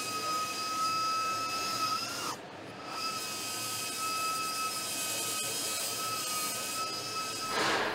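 Power tool in a car body shop running with a steady high whine over a hiss. It winds down and stops about two seconds in and starts again about a second later. A short rushing whoosh comes near the end.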